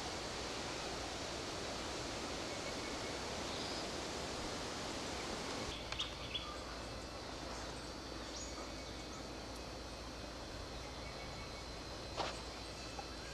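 Outdoor ambience in eucalypt bush: a steady rustling hiss that drops abruptly to a quieter background about halfway through. After the drop come a few short sharp clicks or snaps, two close together and one near the end.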